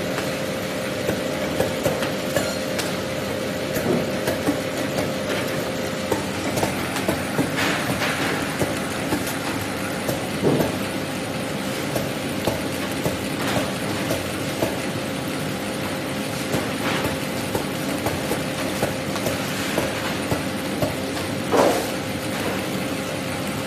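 Fish weighing and grading machine running: the conveyor belt's steady mechanical noise with a steady hum, broken by irregular knocks and clacks as the sorting flaps swing across the belt and fish are pushed off into the grading chutes.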